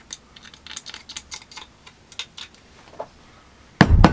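Chainsaw parts and tools being handled: a quick run of light clicks and scrapes, then a loud clunk near the end.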